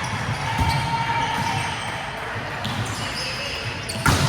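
Volleyball game in an echoing indoor gym: steady hall noise with faint squeaks, and a sharp smack of a hand hitting the ball about four seconds in.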